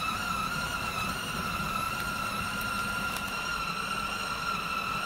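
Food processor motor running steadily with a high, even whine while blending ground tofu into a wheat-gluten dough.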